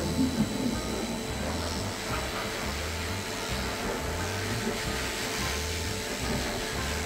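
Cordless Swiss-made electric dog clipper running with a steady whir as its blade is pushed through a thick, matted curly coat, shaving the mats off close to the skin.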